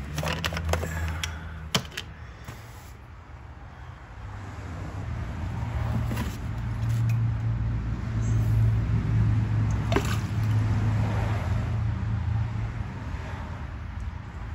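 Car running with a steady low hum that grows louder about four seconds in and eases near the end, after a few sharp clicks and knocks at the start.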